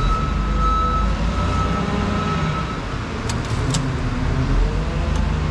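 Motor vehicle engine running with a steady low rumble and a faint steady whine that fades out about halfway through. A few light metallic clicks come in the second half.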